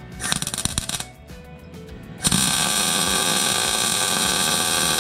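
MIG welder arc tack-welding a steel roll-cage bar in place: a short burst of arc under a second long, then a little over two seconds in a second, steady arc that keeps running.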